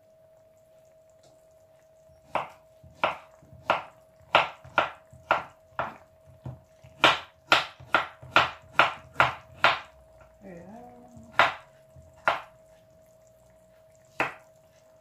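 Chef's knife slicing courgette and striking a wooden chopping board: a quiet start, then a run of cuts about two a second, then a few single cuts near the end. A faint steady hum runs underneath.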